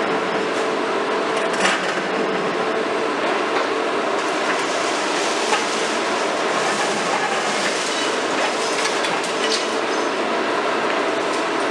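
KMC 400 high-reach demolition excavator (a converted Hitachi 350) working, its engine and hydraulics running steadily under a continuous clatter of concrete being broken and debris falling. A couple of sharper knocks stand out, about two seconds and five and a half seconds in.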